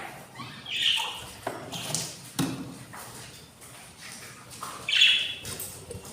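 Budgerigars giving two short, harsh squawks about a second in and near the end, with a few knocks and scrapes in between.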